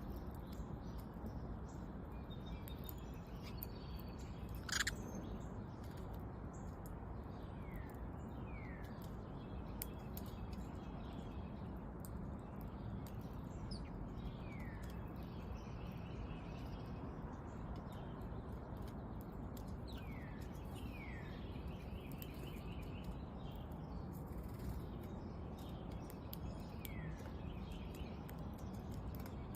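Small songbirds at a seed feeder giving short, downward-slurred chirps, often two in quick succession, every few seconds over a steady low background hum. One sharp, louder chirp or click stands out about five seconds in.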